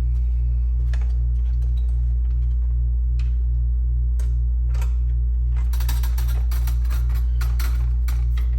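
Screwdriver working screws into the Macintosh Classic's metal chassis: scattered clicks, then a dense run of rapid clicking for about three seconds near the end. A steady low electrical hum sits underneath throughout.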